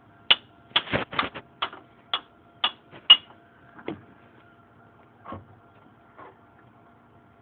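A run of sharp clicks or knocks, quick and uneven for the first few seconds, then three fainter ones further apart, over a faint steady hum.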